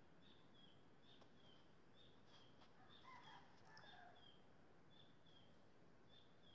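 Near silence: faint outdoor ambience with a faint, high, short chirp repeating about twice a second.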